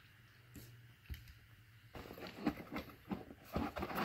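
Light handling noise of unboxed parts and packaging: a single click at the start, then from about two seconds in a run of soft rustles, clicks and knocks.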